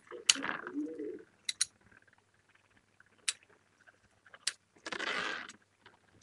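Homemade Beyblade spinning tops battling on a plastic tub lid: a handful of sharp, separate clicks as the tops strike each other, with a longer hissing rush about five seconds in.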